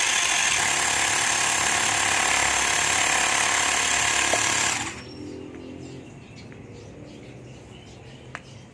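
Handheld cordless electric tire inflator running, a loud steady buzz with a high whine, pumping up an electric scooter's rear tire through its hose. It cuts off abruptly about five seconds in, followed by a few faint clicks.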